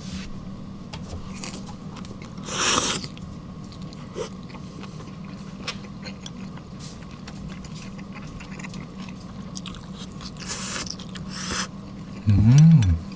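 Close-miked eating sounds: chewing sauce-dipped shabu-shabu beef and vegetables, with many small wet mouth clicks and a few louder noisy bursts. Near the end comes a short hummed voice sound that rises and then falls in pitch, the loudest thing in the clip.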